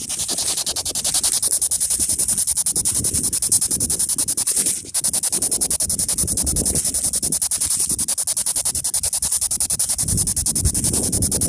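P-SB7 spirit box sweeping through radio stations: rapid, evenly chopped static that stutters many times a second. Wind rumbles low underneath.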